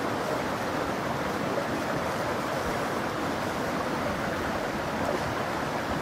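Swollen woodland stream rushing steadily over stones and tangled branches.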